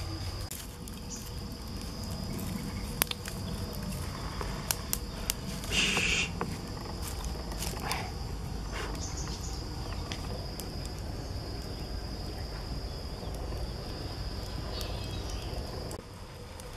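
Steady high-pitched insect drone with a low rumble underneath, broken by a few sharp clicks and a brief hiss about six seconds in.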